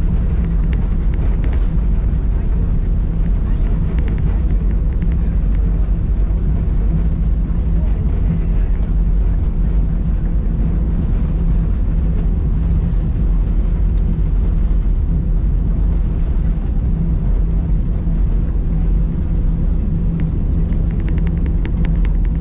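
Cabin noise inside an Airbus A319 rolling along the runway after landing: a steady, loud low rumble of engines and wheels with a low hum running through it, and a few light clicks near the end.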